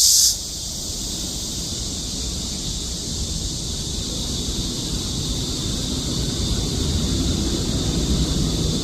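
A loud, steady high insect chorus cuts off abruptly just after the start, leaving wind buffeting the microphone as a steady low rumble that grows slightly louder, with a fainter high insect buzz still behind it.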